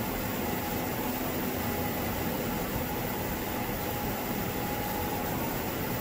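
Steady hiss and hum of equipment cooling fans, with a few faint steady tones running under it.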